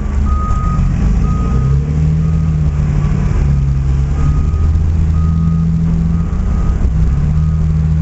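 Backup alarm on construction machinery beeping over and over at a steady pace, over the low, continuous drone of a heavy diesel engine whose pitch shifts slightly as it works.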